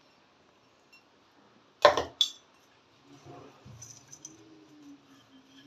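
Two sharp metallic clinks about two seconds in, a steel spoon knocking against a steel vessel while crushed peanut is scooped into the mixing bowl, then faint handling sounds.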